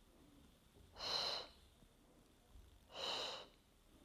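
A woman's sharp, breathy exhalations, two of them about two seconds apart, breathing out on each squeeze of a seated Pilates side crunch.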